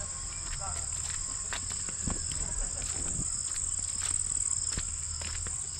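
Steady high-pitched chorus of insects at dusk, with scattered footsteps and small crackles on a dirt path.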